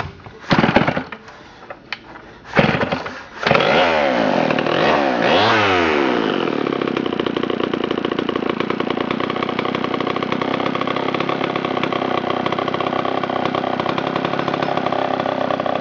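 A 1965 Homelite XP-1100 chainsaw's 100 cc two-stroke engine being started: two short bursts as it is pulled over, then it catches about three and a half seconds in. It is revved up and down twice and then settles into a steady idle.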